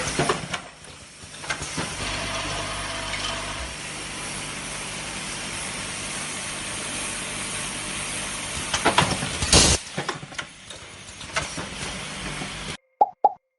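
Mask-making machinery running, a steady hum and hiss with scattered clicks. There is a louder burst of noise about nine seconds in, and the sound cuts off suddenly near the end.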